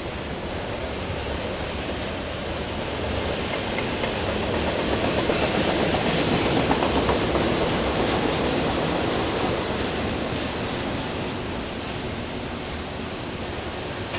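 Train rolling past on the rails, a steady rumble of wheels that swells to its loudest about halfway through and then fades.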